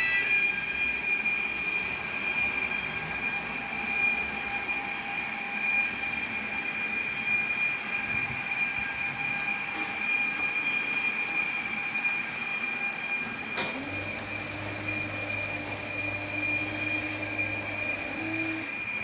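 Sound-equipped Trix 494 model locomotive running, its sound decoder playing train sounds through its small speaker over a steady high whine. About fourteen seconds in, a click is followed by a low steady tone held for about four and a half seconds.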